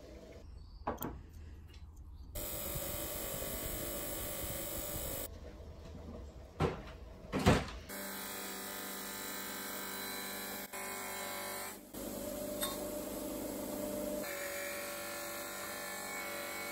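Bench grinder with a buffing wheel running steadily while brass blowtorch parts are polished against it. It goes in two long stretches with a quieter gap between, broken by a few sharp knocks, the loudest about seven and a half seconds in.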